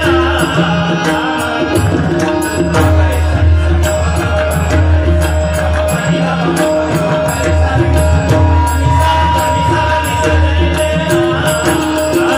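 Live Indian devotional bhajan music over a PA: a man singing with held instrumental notes beneath him and a steady beat of drums and cymbals.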